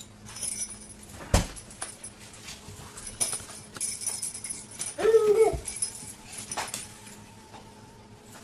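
A pet dog playing with a toy: small clicks and light jingling, a sharp knock about a second in, and one short whine about five seconds in.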